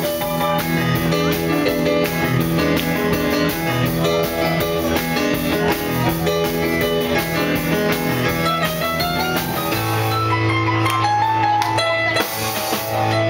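Live band playing an instrumental passage on keyboard, electric guitar and drum kit. About ten seconds in the cymbals drop away and a low note is held under the rest.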